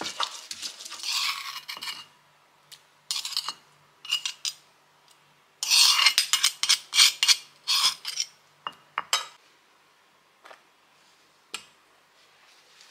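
Stone pestle grinding and mashing corn kernels into spice paste in a stone mortar, a dense rough scraping. After a pause, a metal spoon stirs the corn batter in a glass bowl: a cluster of sharp scrapes and clinks against the glass, then a couple of single clicks.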